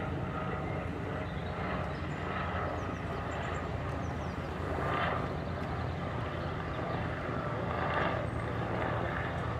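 Steady low outdoor rumble of distant engine noise, swelling briefly about five and eight seconds in, with a few faint high chirps.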